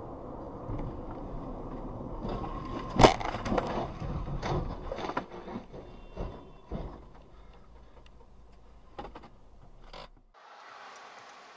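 Car crash heard from inside a following car over steady road noise: a loud impact about three seconds in, then a run of bangs and clatter as a car strikes the roadside barrier and rolls onto its roof.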